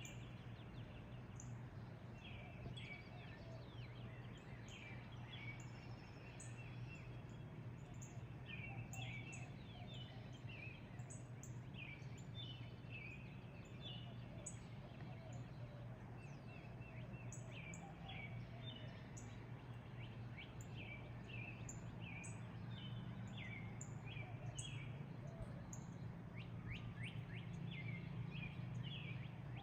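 Morning birdsong: several small birds chirping and calling in quick, repeated short notes, over a steady low hum.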